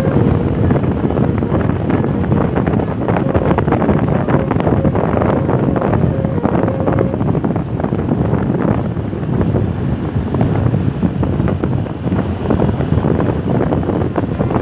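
Wind buffeting the phone's microphone over the steady rumble of road traffic. A faint steady tone sounds for a few seconds in the first half.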